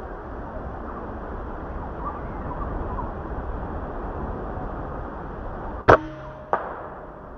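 Air rifle firing once, a sharp crack about six seconds in, followed by a second, weaker click about half a second later, over steady outdoor background noise.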